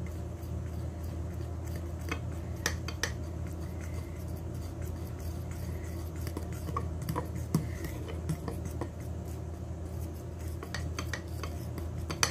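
Metal spoon stirring thin cake batter in a ceramic plate, with scattered sharp clinks of the spoon against the plate, over a steady low hum.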